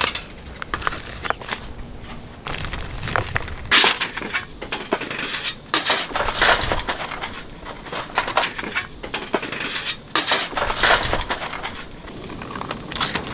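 Irregular clatter of charcoal briquettes and a thin stainless-steel fire-grill plate being handled: briquettes knocking and crunching against the metal, and the sheet rattling and scraping as it is slid into its stand, loudest in a few sharp clusters.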